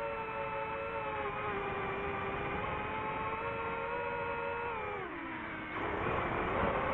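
DJI FPV drone's motors and propellers whining at a steady pitch. The pitch sinks about five seconds in, then a louder rushing burst comes near the end as the drone throttles up again.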